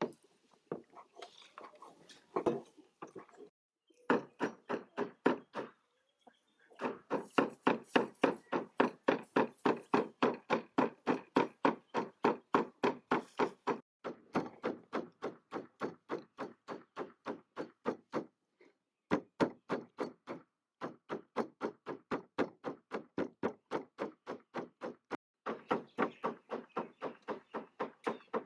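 Rapid, rhythmic chopping with a knife on a wooden cutting board, about four strokes a second, in runs of several seconds with short pauses between them.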